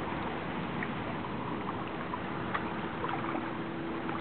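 Steady outdoor night ambience: an even hiss with scattered faint high ticks, and a faint steady hum that joins about a second and a half in.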